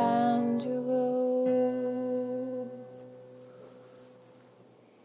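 Closing note of an acoustic guitar song: a held sung note over a strummed guitar chord, both ringing on and fading away over about four seconds.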